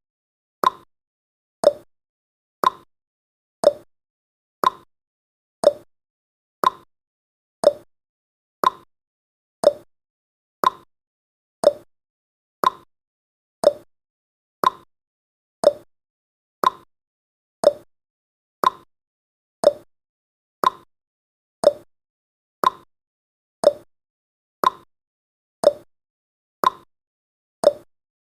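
Countdown timer's ticking sound effect: one short, sharp tick every second, evenly spaced.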